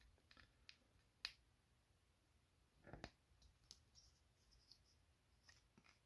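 Faint clicks and taps of small plastic parts of an Iron Factory Steel Lucifer transforming robot toy being handled and fitted together. The sharpest click comes about a second in, and a duller knock comes around three seconds, with a few lighter ticks scattered through.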